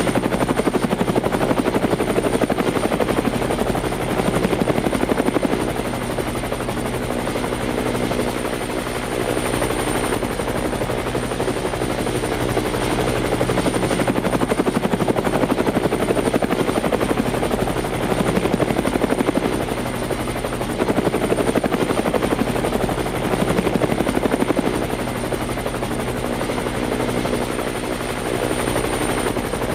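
Helicopter in flight: the fast, steady chop of the rotor blades over a continuous engine hum, swelling louder and easing off every few seconds.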